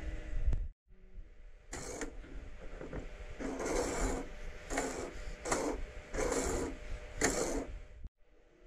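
A slider car being pushed back and forth along a 3D-printed self-tacking jib track, rubbing and rattling in about six strokes roughly a second apart.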